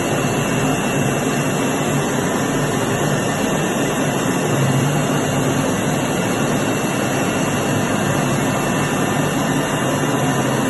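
Milling router cutting plywood: a steady machine noise with a thin high whine that holds one pitch.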